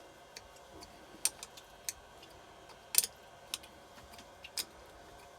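Scattered sharp clicks and light metallic taps from hand tools working on a motorcycle engine's cylinder head fasteners, irregularly spaced, the loudest about three seconds in.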